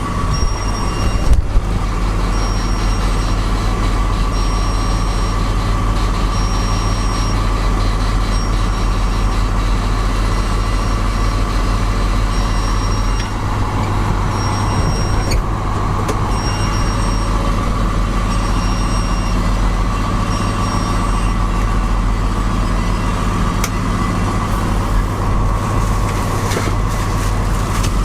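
Truck engine idling steadily, with a short high electronic beep repeating every second or two that stops about three quarters of the way through, and a couple of sharp clicks.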